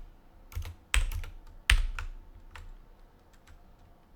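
Typing on a computer keyboard: irregular runs of keystrokes, with two sharper key strikes about one and almost two seconds in, thinning out to a few taps and then going quiet for the last second or so.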